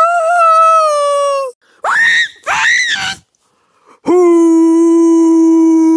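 A person's voice screaming without words. One long cry trails off about a second and a half in, two short rising-and-falling yelps follow, and a long steady wail starts about four seconds in.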